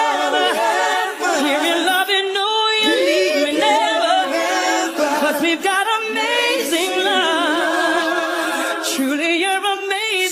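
A woman's soul ballad vocal, sung live into a microphone: long notes with a wide wavering vibrato and gliding runs up and down in pitch.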